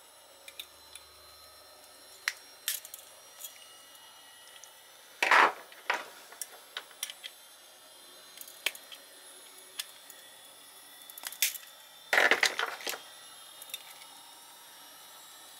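Small metal clicks and scrapes as pliers and a screwdriver work at the sheet-metal frame and plastic parts of a Ranco K59 fridge thermostat. Two louder scrapes come about five seconds in and again around twelve seconds.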